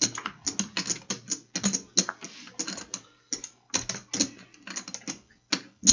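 Rapid, irregular light clicks and clacks, several a second, over a faint low hum.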